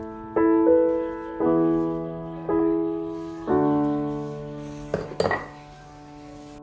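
Background piano music: slow chords struck about once a second, each fading away. There are a few short clicks about five seconds in, after which the music goes quieter.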